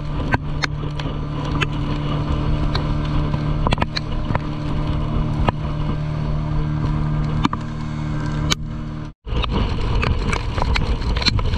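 Open boat's outboard motor running steadily at speed, with wind and rushing water and scattered sharp knocks as the hull slams on the chop. The sound cuts out for a moment about nine seconds in.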